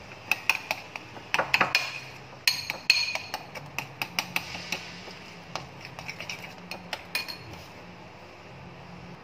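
A metal spoon clinks and scrapes against a white ceramic bowl, beating eggs into cold rice in quick, irregular strokes. The strokes stop a little over seven seconds in.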